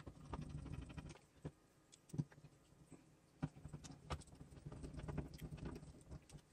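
Small precision screwdriver driving screws into the base of a toy display stand: faint scraping and light clicking as the screw turns, with a couple of sharper ticks about two and three and a half seconds in.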